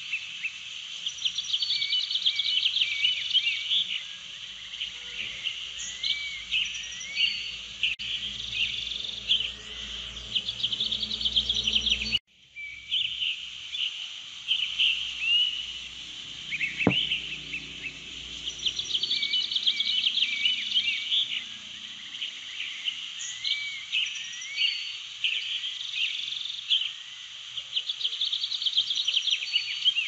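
Many birds chirping and warbling in a dense chorus of short calls, likely a nature ambience track. The sound cuts out for a moment about twelve seconds in, then resumes.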